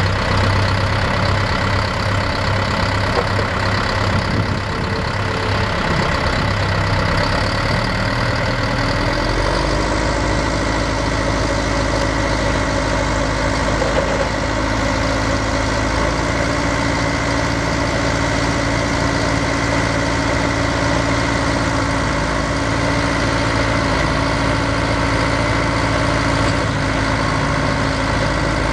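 Cat 525 grapple skidder's diesel engine running steadily at idle, its pitch rising slightly about nine seconds in and then holding.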